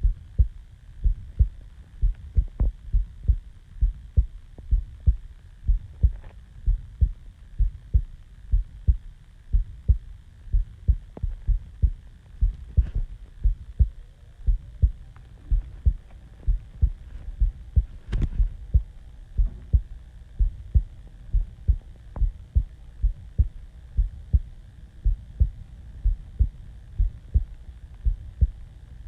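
A human heartbeat recorded close to the chest, at rest just after waking: a steady, regular train of low thumps, some heard as paired lub-dub beats, a little faster than one a second.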